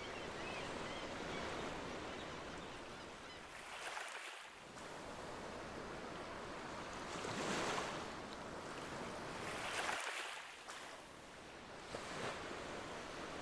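Ocean waves gently lapping on a shore. Each wash swells and fades, about four times.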